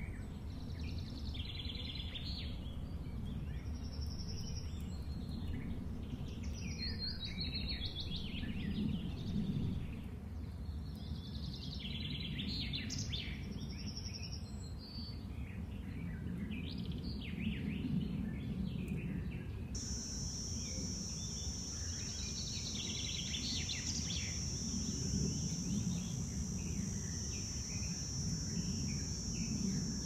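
Outdoor nature ambience: several small birds chirping and calling over a low background rumble. About two-thirds of the way through, a steady high-pitched insect drone comes in and holds.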